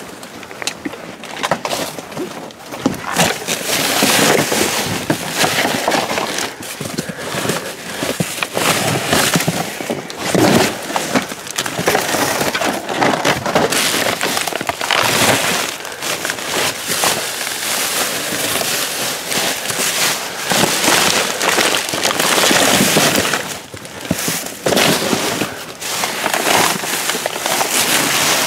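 Plastic trash bags crinkling and rustling as they are handled and shifted, a dense irregular crackle broken by small knocks and clatters.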